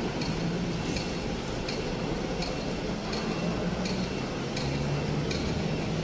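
Road ambience of vehicle engines idling and running under an elevated expressway, with a wavering low engine hum. A faint regular ticking sounds about once every three-quarters of a second.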